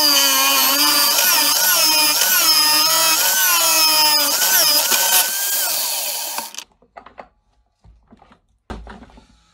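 Old corded electric drill in a drill stand boring a 25 mm hole through a 40 mm chipboard worktop: the motor's pitch sags and recovers again and again as the bit bites under feed pressure. It cuts off about six and a half seconds in, followed by a few faint knocks.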